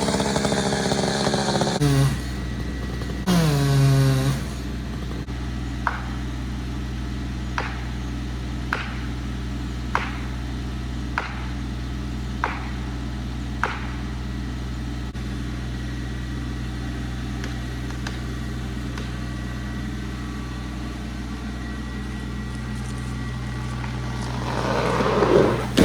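A chainsaw finishes cutting and drops to a steady idle, revving once briefly. A series of sharp knocks follows, spaced about a second apart. Near the end, a rising rush and crackle comes from the dead tree as it tips and falls.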